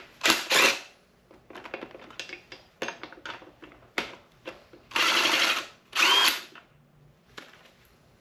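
Handheld power tool whirring in short bursts, about half a second in and then twice more, each under a second, about five and six seconds in, with small metallic knocks between: loosening the connecting-rod cap nuts to drop a piston.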